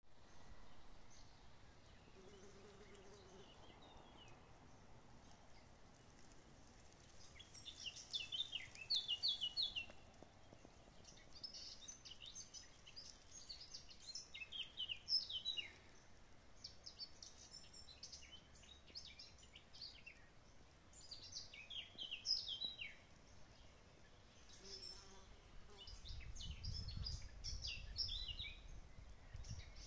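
Songbirds singing in short phrases of quick, high, falling notes, several phrases one after another. There is a low rumble near the end.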